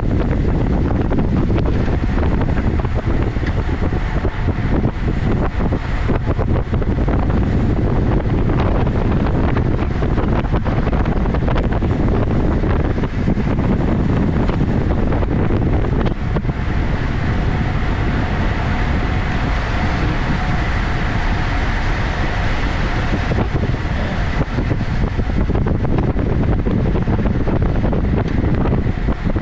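Steady, loud wind rush buffeting the microphone of a camera on a moving road bicycle, with a higher hiss joining about halfway through.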